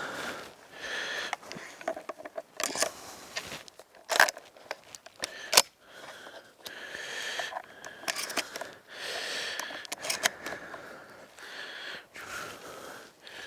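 Mossberg shotgun being loaded by hand: sharp metallic clicks, the two loudest about four and five and a half seconds in, amid rustling and scraping of clothing and gear.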